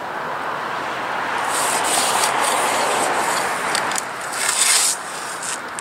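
Blue painter's tape being pulled off its roll in rasping pulls and rubbed down onto the chimney bricks, with two longer rasps, one about two seconds in and one near the end, over a steady rush of passing road traffic.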